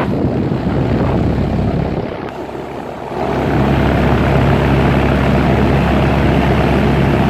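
A 1998 Rheem Classic XIV 4-ton, 14 SEER central air conditioner condenser with a scroll compressor, running. Its outdoor fan makes a steady rush of air over a low hum, and the sound grows louder about three seconds in.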